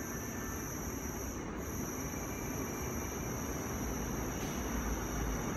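Subway train approaching an underground station platform behind platform screen doors: a steady rumble of wheels on rail that grows gradually louder.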